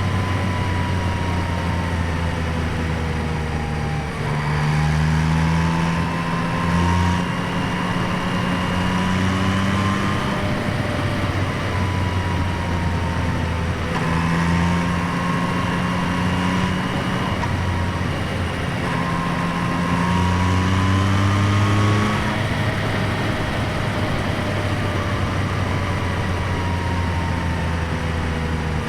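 A 2025 Yamaha MT-09's 890 cc inline-three engine under way, heard through microphones in the airbox and by the exhaust, so intake sound and exhaust note mix. The revs rise and fall in pitch several times as the bike speeds up through the gears and slows down.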